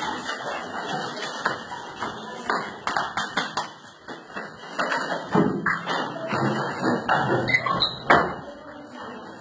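Indistinct voices, with a quick run of light taps or knocks about a third of the way in.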